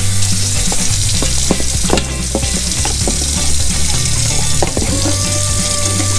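Kitchen tap running water into a stainless steel bowl while a metal spoon stirs and clinks against the bowl, mixing cornstarch into a slurry. Background music plays underneath.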